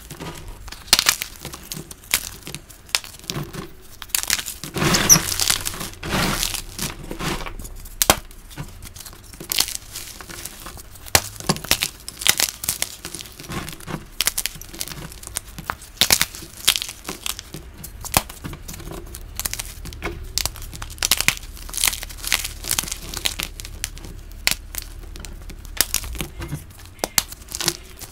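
Dyed gym chalk blocks being broken and crushed by hand: a dense run of crisp crunches and crumbling crackles, with a busier stretch about five seconds in.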